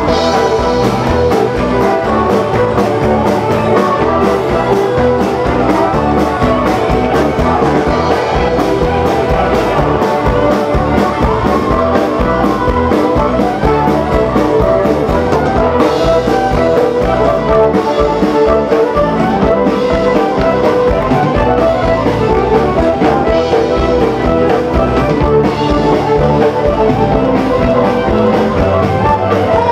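Live folk band playing a reel on banjo, fiddle, accordion and acoustic guitar, backed by a drum kit, continuous and loud.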